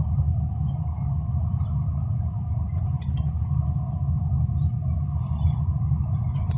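Car engine and road noise heard from inside the cabin while driving: a steady low rumble, with a few brief rattles about three seconds in.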